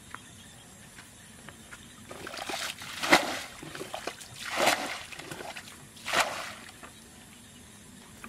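Muddy water scooped up in a bucket and flung out, splashing three times about a second and a half apart, with small sloshes between: a ditch being bailed out to get at the fish.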